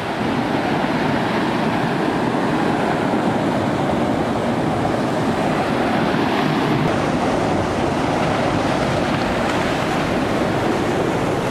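Water pouring through a gap in a concrete canal wall and splashing into a ditch below: a steady loud rush.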